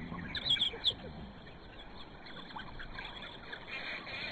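African wild dogs twittering and squeaking in greeting, with a quick cluster of high chirps in the first second, then softer scattered squeaks.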